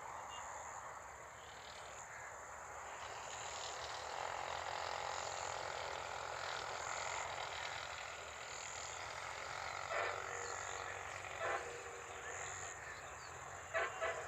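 Outdoor insect chorus: a steady high buzz that swells regularly about every second and a half to two seconds, over a broad hiss, with a few short sharp calls near the end.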